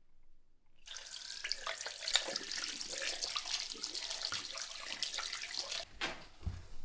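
Water running from a tap onto hands being rinsed in a sink, starting about a second in and cutting off suddenly near the end.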